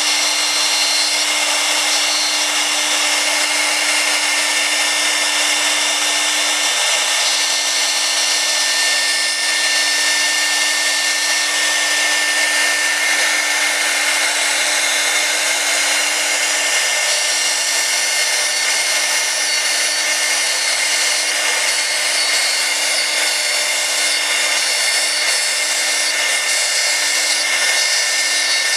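A1325C CNC router spindle running at high speed while its small end mill cuts and engraves acrylic sheet: a steady whine with the hiss of the cutting.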